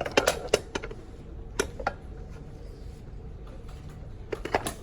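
A scatter of sharp clicks and taps: a quick cluster at the start, two more a little under two seconds in, and another cluster near the end, over a steady low hum.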